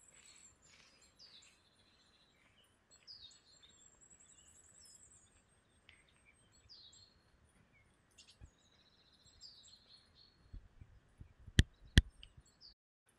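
Wild songbirds chirping and trilling faintly, a few short calls at a time. Near the end come a few footsteps and two sharp, loud knocks close together.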